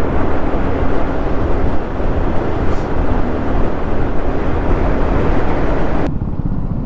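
Motorcycle riding at highway speed: wind rushing over the microphone, with the engine running steadily underneath. About six seconds in, the hiss of the wind cuts off abruptly and the engine is left lower and plainer.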